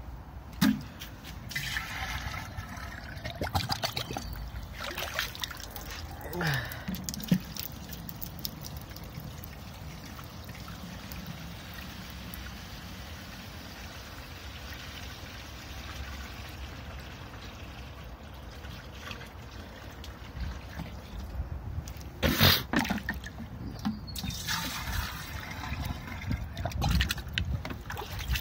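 Water trickling and pouring, a steady running-water noise through most of the stretch, with a few louder clattering knocks near the start and again toward the end.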